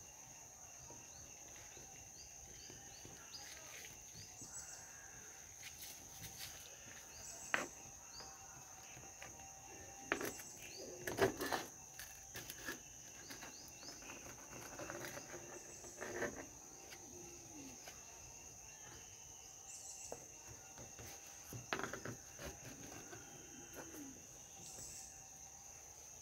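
Insects, crickets, trilling steadily and high in the background, with a few short bird chirps. Scattered knocks and clicks sound over it, the loudest cluster about ten to twelve seconds in.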